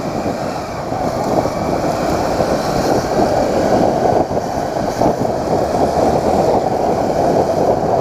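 Motorcycle on the move, with wind rushing steadily over the microphone and the engine and road noise underneath.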